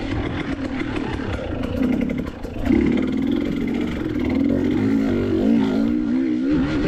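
KTM EXC 300 TPI two-stroke dirt bike engine revving while being ridden, its pitch rising and falling with the throttle. It drops off briefly about two seconds in, picks up sharply, then wavers up and down toward the end.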